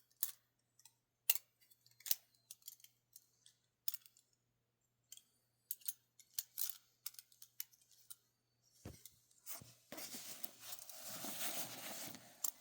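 Thin metal parts of a small folding bush stove clicking and clinking as they are fitted together, with a steadier scraping rustle in the last few seconds.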